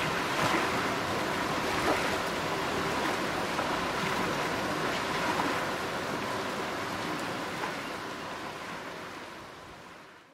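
Water running steadily over wet parchment coffee beans in a washing tank, fading out over the last couple of seconds.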